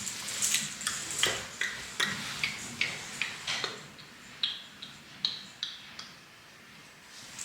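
A series of light, sharp clicks, about two a second, growing fainter and stopping about six seconds in.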